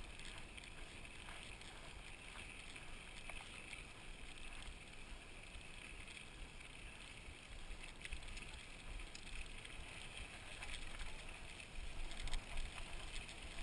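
Wind rushing over an action camera's microphone on a moving mountain bike, with faint tyre noise on a dirt trail and a few small clicks; the buffeting grows louder near the end.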